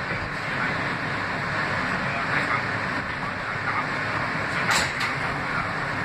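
Interior of a New York City R160B subway car coming to a stop at a station: steady running and braking noise, with a short sharp hiss about three-quarters of the way through as the doors slide open.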